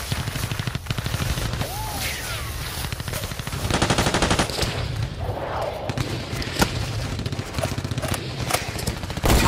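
War-film gunfire: machine-gun bursts and scattered shots, with a dense rapid burst about four seconds in and a loud shot near the end.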